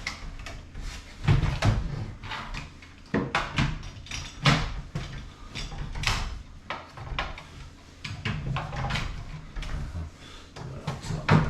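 A run of irregular clunks and knocks, about a dozen over the stretch, from hands-on fitting work at a door.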